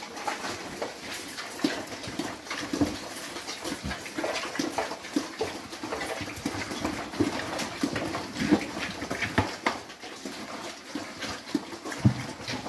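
A group of pigs feeding from pans of wet mash made of feed, soy hulls and whey: steady chomping and slurping mixed with many short grunts.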